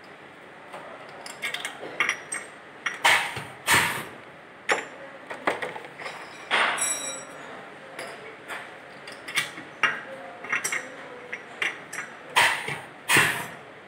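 Glass bottles clinking and knocking as they are handled and capped on a glass bottle capping machine, with a few louder short bursts from the capping strokes.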